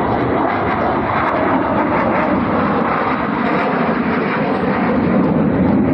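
Military jet flying over the crowd: steady jet engine noise that grows slightly louder near the end.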